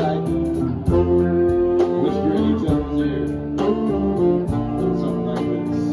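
Live swing band playing, guitar to the fore over a steady beat.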